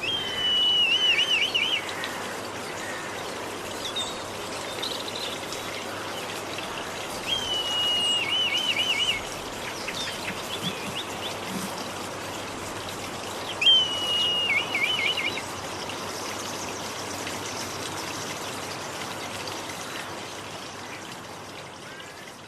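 A red kite gives its thin, skirling call three times, about six seconds apart: each call is a high whistle held briefly, then breaking into a quavering, wavering trill. A stream trickles steadily underneath, and the sound fades out near the end.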